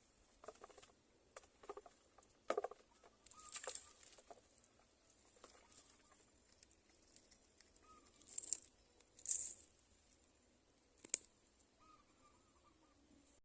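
Scattered close rustles and clicks, with one sharp click about eleven seconds in, over faint bird chirps.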